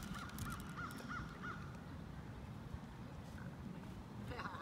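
A bird calling: a quick run of short, clear, rising-and-falling notes, about four a second, that stops about a second and a half in.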